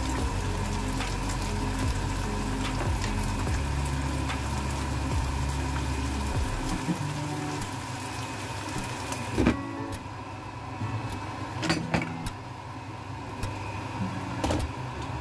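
A pan of mussels cooking on a gas hob with a steady low hum, which drops out about seven seconds in. A few sharp knocks and clatters of cookware follow.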